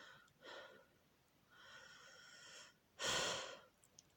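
A person breathing: several soft breaths, the loudest about three seconds in.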